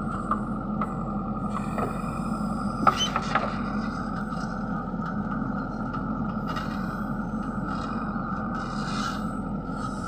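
Manitou MBL 745HTS backhoe loader's diesel engine running steadily under digging load, with a few sharp knocks and scrapes as the backhoe bucket works into dry soil, the loudest about three seconds in.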